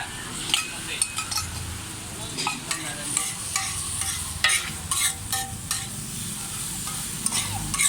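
Steel spatulas striking a hot iron griddle as kothu parotta is chopped, with sharp clanks coming irregularly, a couple of times a second, over steady sizzling.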